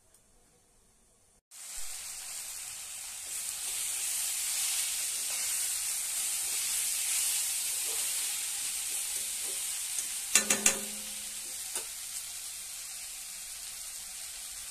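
Chopped mixed greens with pumpkin and bori sizzling as they stir-fry in a kadai, a spatula stirring through them. The steady sizzle starts suddenly about a second and a half in. About ten seconds in, the spatula knocks against the pan three times in quick succession, and once more a moment later.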